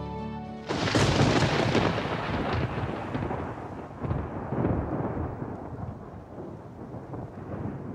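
A thunderclap: a sudden loud crack about a second in, then a long rolling rumble that swells again around four seconds in and slowly dies away.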